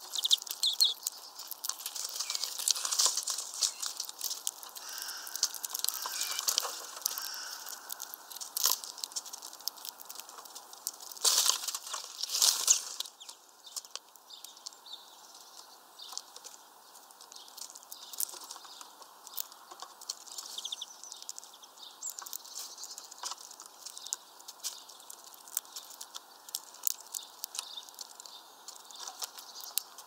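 Small finches at a seed feeder: scattered pecking ticks and seed-husk clicks with wings fluttering. There is a loud burst of wingbeats and rustling about eleven to thirteen seconds in as most of the flock flies off, and fewer, quieter clicks after that.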